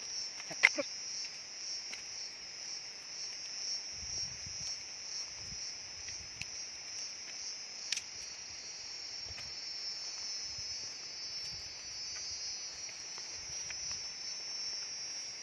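Steady high-pitched chorus of insects trilling in forest undergrowth, throbbing rapidly at first and then running smoother. A sharp click stands out a little under a second in, and soft rustling thuds of footsteps in dry leaf litter come and go from about four seconds on.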